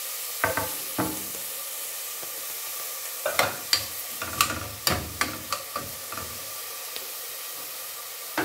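Diced onions sizzling in hot oil in a stainless steel pot, with a metal spoon clinking and scraping against the pot as they are stirred; a couple of clinks early, then a quick run of them in the middle.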